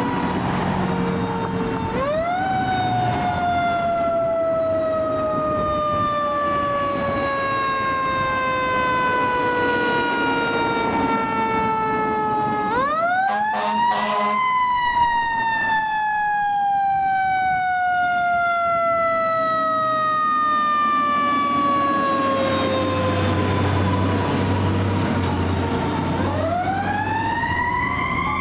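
Fire engine siren winding up three times, about ten seconds apart, each time rising quickly in pitch and then slowly falling away, with the fire engine's engine rumbling low beneath it near the end.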